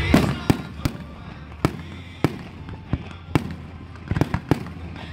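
Aerial fireworks shells bursting: a string of sharp bangs at irregular intervals, about a dozen in five seconds, the first a deep boom.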